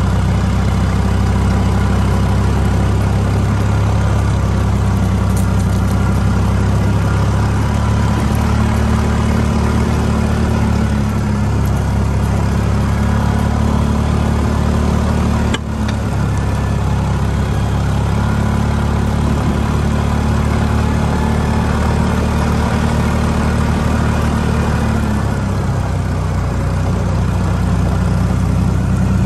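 A motor vehicle's engine running steadily at low speed, its hum shifting a little partway through. One brief click about halfway through.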